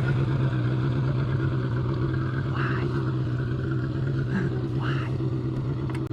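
A boat's outboard motor running steadily with an even hum. Two short hissing noises come about two and a half and five seconds in.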